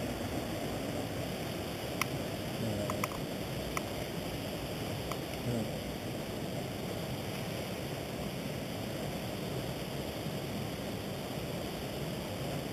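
Steady rush of a shallow, rocky stream flowing over small rapids, with a few faint clicks a couple of seconds in.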